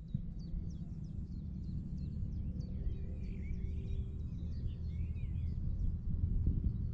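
Small birds chirping in many short calls, over a steady low rumble.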